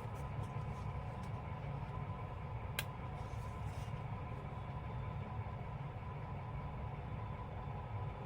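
Steady low hum of background noise, with one sharp click about three seconds in.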